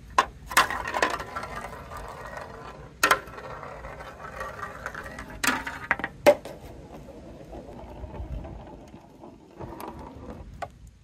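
A ball rolling and rattling around a plastic spiral marble-run track, with sharp clacks as it knocks against the track. After about six seconds the rolling is quieter, with a few light clicks, as the ball runs on along a wooden bench into a plastic rain-gutter chute.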